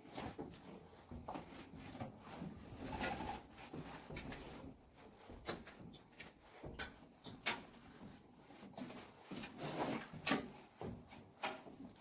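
Irregular clicks, knocks and scrapes of footsteps and handling over a debris-strewn floor in a small empty room, with the sharpest clicks a few seconds apart in the middle and a short rustling scrape near the end.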